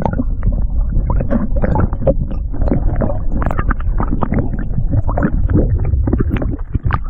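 Wind rumbling on the microphone, low and continuous, with irregular crackling and buffeting throughout.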